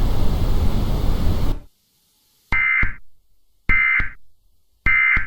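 A hiss of static cuts off about one and a half seconds in, followed by three short, identical bursts of digital data tone about a second apart: the Emergency Alert System end-of-message (EOM) code that closes an alert.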